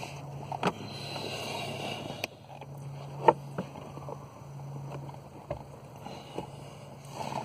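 Knocks and rubbing as a 2002 Pontiac Grand Prix blower motor is worked back into its tight housing under the dash. There are several sharp knocks, the loudest about three seconds in, over a steady low hum.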